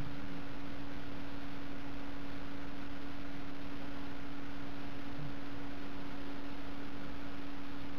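A steady low hum holding one pitch throughout, over an even background hiss.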